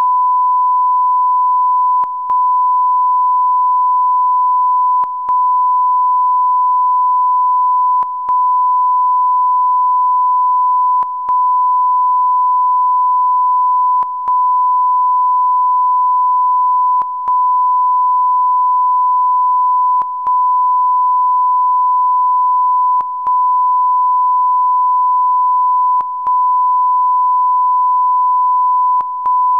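A steady 1 kHz sine test tone, the audio line-up tone of an archive film transfer. It breaks briefly with a small click about every three seconds.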